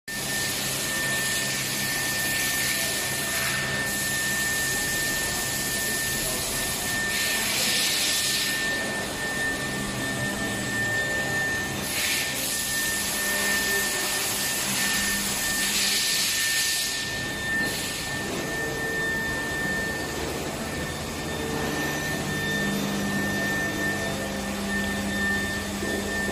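Machine-shop noise of CNC vertical machining centres running: a steady hum under one steady high tone, with several hissing bursts about a second long.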